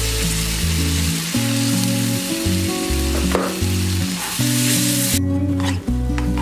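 Meat broth sizzling in a hot nonstick pan of butter-and-flour roux as a spoon stirs it, over background music. The sizzle cuts off suddenly about five seconds in, leaving a few short scrapes of the spoon through the thickened sauce.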